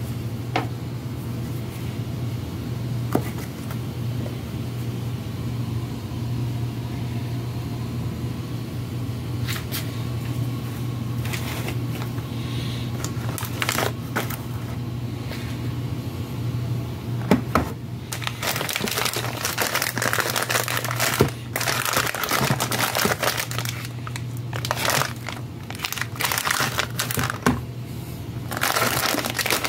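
Plastic snack packets crinkling and rustling as they are handled and lifted out of a cardboard box, with a few knocks. The crinkling comes in dense bursts in the second half and again near the end, over a steady low hum.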